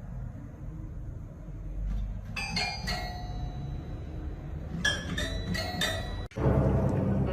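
Several short bell-like clinks in two groups of three or four, over a low rumbling background. Music cuts in near the end.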